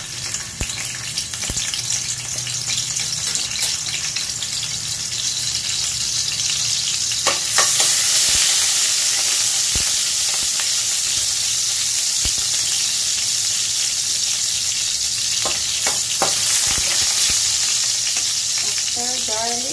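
Chopped garlic sizzling in hot cooking oil in a stainless steel pan. The frying hiss grows louder over the first several seconds and then holds steady. A few short clicks of a utensil stirring come about a third of the way in and again near the end.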